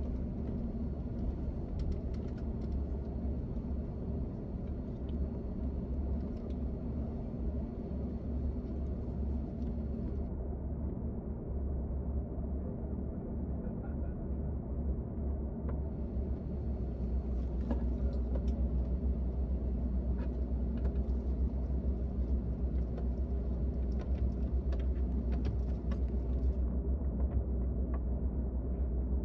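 Steady low rumble in the passenger cabin of an Airbus A380, with scattered light rattles and clicks. It grows a little louder a bit past halfway.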